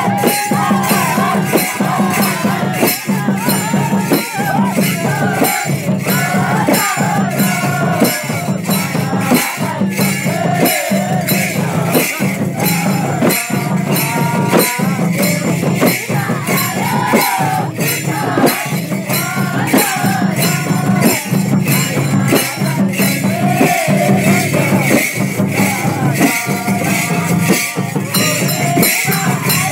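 Nepali chudka folk music: a steady beat of sharp percussion strikes with voices singing over it.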